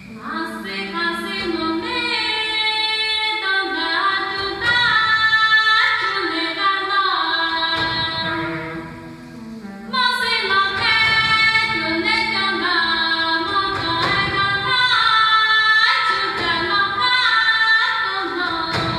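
A woman sings a slow Hmong-style melody in two long phrases, with a short break about nine seconds in, echoing in a cave. A low steady tone holds under the first phrase.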